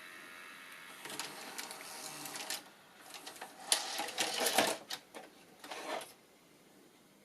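VCR tape-transport mechanism running, a quick run of mechanical clicks and whirring rattles that is loudest in the middle and stops about a second before the end.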